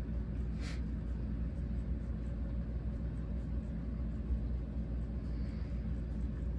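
Motorized rotating display turntable running with a steady low hum. A brief soft hiss comes just under a second in.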